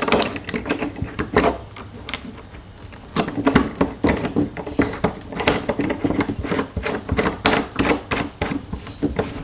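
Irregular clicking and light tapping of a metal shower-drain tailpiece and its fitting being handled and threaded together by hand, with a quieter stretch about two to three seconds in.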